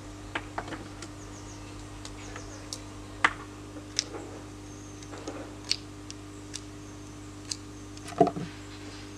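Knife cutting short pieces from a thin green twig, heard as a string of sharp, separate clicks and snaps, with a louder knock near the end.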